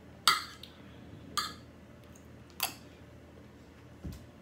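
Metal spoon and fork clinking against dishes three times, a little over a second apart, with a dull low thump near the end.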